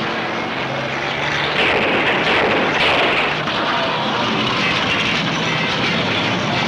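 Engines of old 1960s cars running together in a demolition derby, a loud steady drone with rough noise over it.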